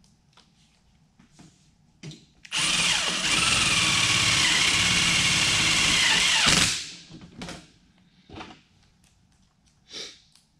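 Cordless drill driving a screw into a galvanized stovepipe elbow joint. It runs at steady speed for about four seconds, then winds down with falling pitch. There are a few light taps of handling before and after.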